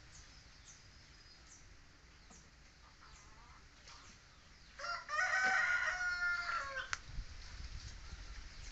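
A rooster crowing once, a single call of about two seconds starting about five seconds in, over faint chirping of small birds.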